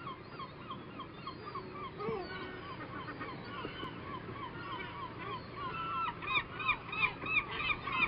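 Seagulls calling, a fast run of short hoarse calls at about four a second, getting louder near the end.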